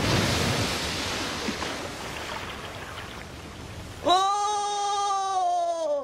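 Cartoon sound effect of rushing floodwater, fading over a few seconds. About four seconds in, a cartoon dog gives a long whine that drops in pitch at the end.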